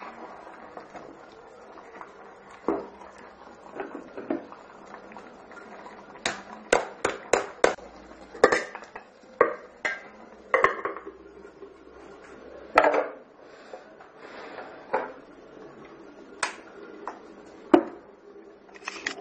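Cooking utensils knocking and scraping against a metal pot in irregular sharp clanks, busiest in the middle.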